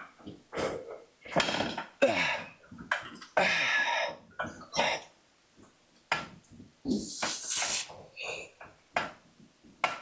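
A man grunting and breathing out hard with each rep of a set of machine hamstring curls, in short bursts about every half to one second, with a few short knocks between.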